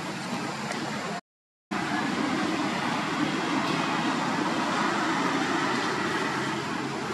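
Steady rushing background noise with no distinct calls. It drops out to silence for about half a second a little over a second in, where the footage is cut, and comes back slightly louder.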